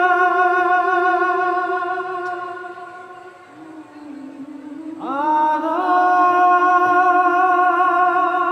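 Slow background music of long, held, wordless sung notes. One note fades away about three seconds in, and a new note slides up and is held from about five seconds in.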